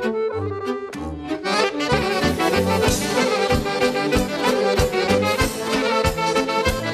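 Accordion playing an instrumental passage of a Balkan folk-pop song, joined about two seconds in by the full band, with violins, saxophone, keyboard, bass and drums, over a steady beat.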